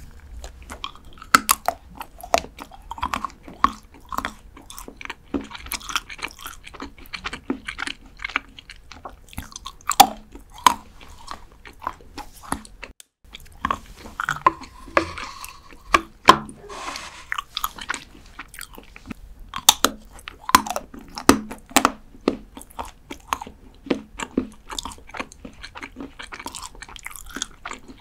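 A dark chocolate bar bitten and chewed close to the microphone: many sharp snapping bites and crisp crunching chews, irregular, a few each second.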